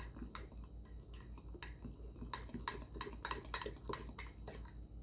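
A fork beating thick cake batter in a ceramic mug: quick, uneven clinks of metal against the mug's sides, about three or four a second.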